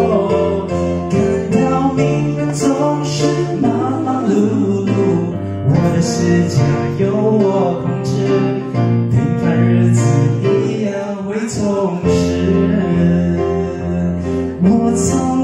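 A man singing a slow Mandarin Xinyao ballad to electronic keyboard accompaniment, with a woman's voice joining in near the end.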